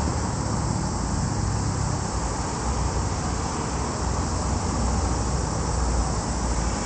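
Steady outdoor background noise: a low, fluctuating rumble under an even hiss, with no distinct events, like distant road traffic.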